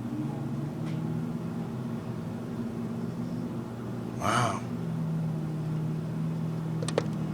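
Vehicle engines running steadily with a low hum while a Hummer H2 tows a stuck city bus out of a snow drift. The hum strengthens about five seconds in, and there is a sharp click near the end.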